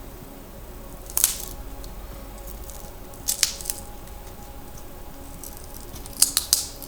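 Adhesive under a memory module's heat spreader cracking apart as the spreader is pried off. There is one sharp crack about a second in, a few more around three and a half seconds, and a quick cluster of snaps near the end. The noise is the glue letting go, not damage to the module.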